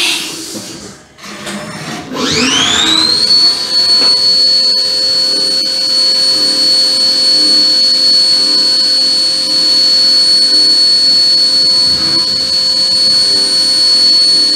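CNC milling machine spindle spinning up about two seconds in, its whine rising quickly and then holding steady and high while an 8 mm end mill cuts flats on aluminium air-cylinder ends under mist coolant.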